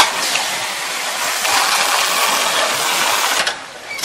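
Automatic carton sealing machine working a box through. There is a sharp click at the start, then a steady, noisy mechanical rasp for about three and a half seconds that stops shortly before the end.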